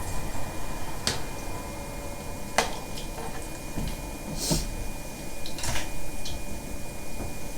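Scattered clicks and clinks of kitchen utensils and cookware being handled, about five separate knocks over a steady faint hum.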